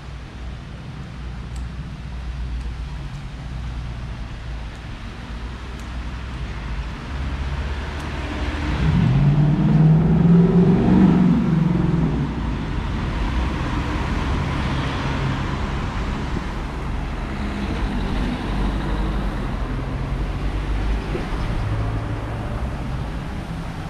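Town street traffic with cars passing one after another. The loudest is a Ford Mustang driving by about nine to twelve seconds in, its engine note swelling and then fading.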